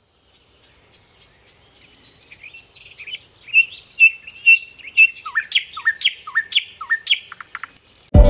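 A songbird singing, fading in from silence: a run of clear repeated notes, then a series of quick falling whistles about twice a second, growing louder. Music cuts in at the very end.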